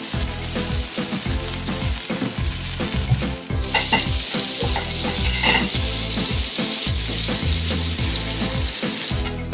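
Beef patties sizzling and spitting in rendered fat on a hot flat-top griddle. The sizzle gets louder about three and a half seconds in. A background music beat runs underneath.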